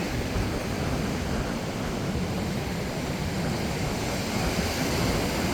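Steady wind rumble on the microphone over the wash of ocean surf on a beach.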